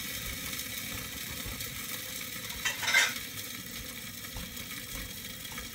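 Omelette eggs frying in a skillet with a steady, gentle sizzle, and one brief louder rasp about three seconds in.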